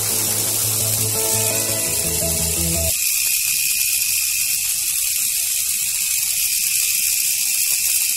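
Small brushed DC motors in a homemade model locomotive bogie running, spinning the wheelsets with a steady high whir. Background music plays over it and stops abruptly about three seconds in.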